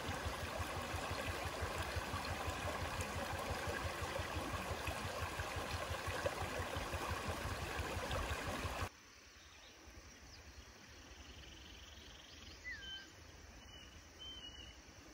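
Shallow stream rushing and splashing steadily over rocks. About nine seconds in it cuts off abruptly to quiet outdoor background with a few short bird chirps.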